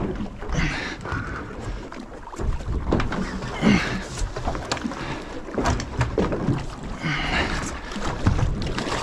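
Wind gusting on the microphone and choppy water slapping against a boat's hull, with scattered knocks.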